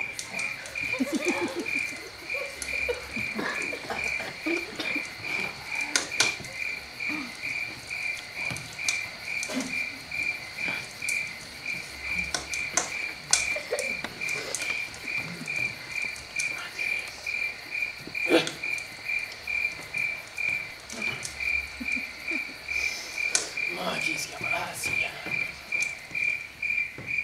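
Crickets chirping in a steady, evenly repeated pulse, played as a night-time sound effect on stage.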